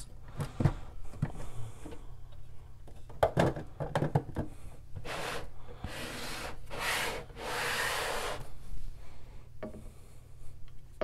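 Handling noise of a plastic LEGO building being handled: a few light clicks, then several rubbing swishes in the middle.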